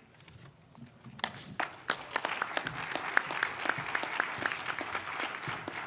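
Audience applauding: scattered claps start about a second in and quickly build into steady applause.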